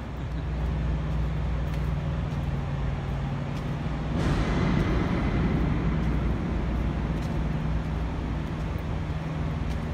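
Steady low mechanical hum, with a louder swell of noise lasting about two seconds beginning around four seconds in.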